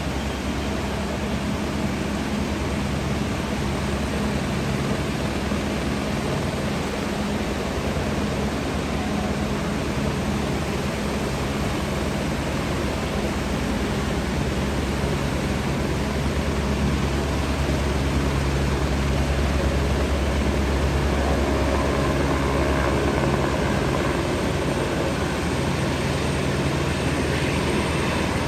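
Steady rush of a flooded river in spate, with a helicopter's engine and rotors coming in over it and growing a little louder in the second half.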